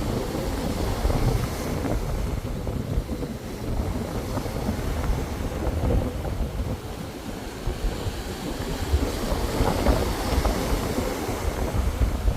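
Ocean waves surging and washing, with wind rumbling on the microphone; the wash swells and eases, fuller near the end.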